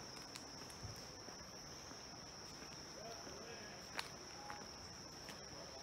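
Steady high-pitched insect chorus, one unbroken buzzing tone, with faint footsteps on a gravel forest path and a sharp click about four seconds in.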